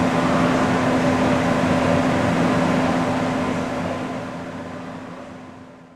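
Steady mechanical hum of powered shop machinery, with a constant low tone under a noisy hiss, fading away over the last three seconds.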